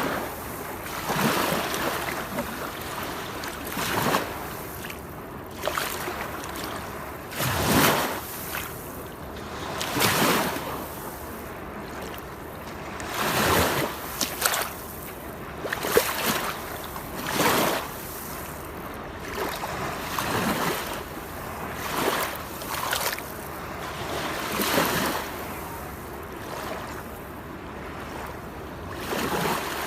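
Rushing water from a waterfall, swelling into louder splashing surges every two to three seconds.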